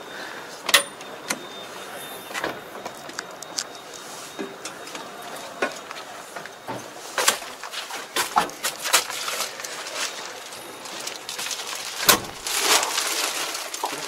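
Clicks and knocks of a John Deere tractor's cab door, handles and steps being handled while someone climbs into the cab, with a heavier thump about twelve seconds in.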